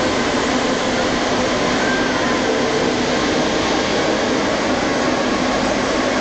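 Santiago Metro train running, heard from inside the passenger car: a loud, steady running noise with faint whining tones in it.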